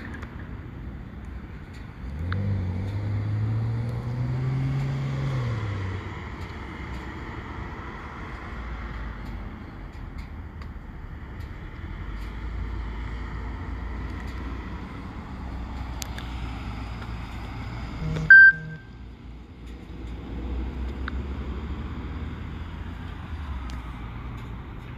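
Steady low rumble of a running vehicle engine. About two seconds in an engine rises then falls in pitch for a few seconds, and about eighteen seconds in a sudden short high-pitched blip is the loudest moment.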